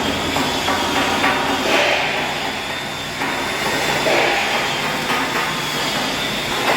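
MIG welding arc crackling and hissing steadily as wire feeds into the weld, dipping slightly about three seconds in before picking up again.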